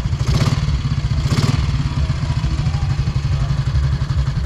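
Classic motorcycle engine running at a steady idle, a fast low thudding beat. Three short, hissy rasps come in the first second and a half.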